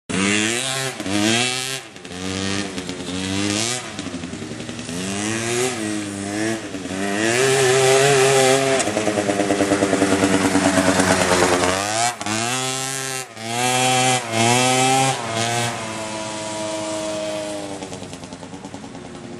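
Youth ATV's small two-stroke engine revving up and down over and over as it is ridden, with a longer high, steady rev in the middle and a few quick blips after it, then easing off and getting quieter near the end.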